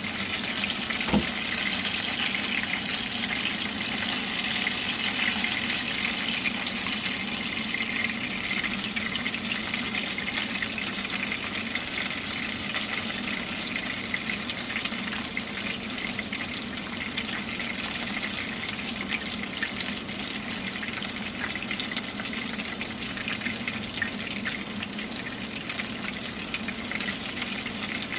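Flour-coated chicken pieces (karaage) frying in shallow oil in a frying pan: a steady sizzle with scattered small crackles, and one sharp click about a second in.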